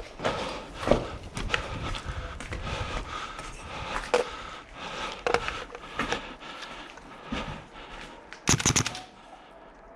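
A player moving on foot, with scattered scraping, crackling steps and knocks, then a short rapid burst of about five sharp cracks near the end, typical of an airsoft rifle firing on full auto.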